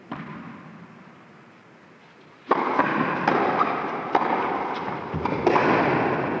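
One sharp knock at the start. About two and a half seconds in, a crowd breaks into loud applause, which swells again near the end.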